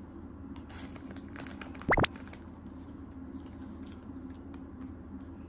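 A Shiba Inu chewing a piece of cake, with faint small wet clicks and smacks. About two seconds in, a brief, loud whistle-like sweep rises quickly in pitch.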